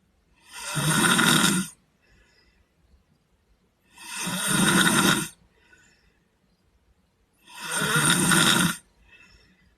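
A sleeping boy snoring in a steady rhythm: three loud snores about three and a half seconds apart, each swelling over about a second and stopping sharply, with a faint breath between them.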